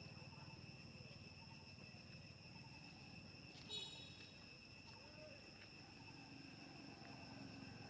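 Faint, steady high insect drone from the surrounding forest, with a brief high chirp about three and a half seconds in.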